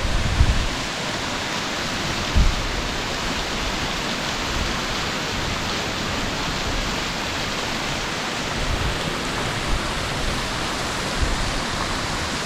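Mountain creek water rushing in a steady, even wash, with a few brief low bumps on the microphone near the start.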